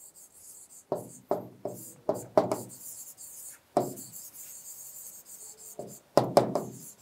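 Pen strokes rubbing and tapping on a writing board as words are written by hand: short separate strokes in quick runs, with a pause of about two seconds in the middle.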